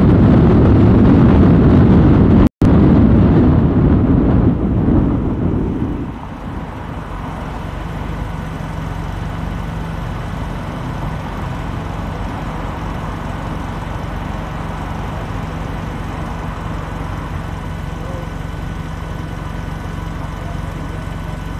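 Car driving through city streets: a loud low rumble of road and engine noise, broken by a split-second cutout about two and a half seconds in, fades about six seconds in to a quieter steady engine hum.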